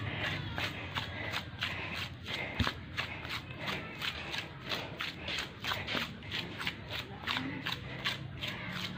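Bare feet treading and kneading a wet clay and sand mix for pottery, a steady run of short shuffling steps in the mud, several a second.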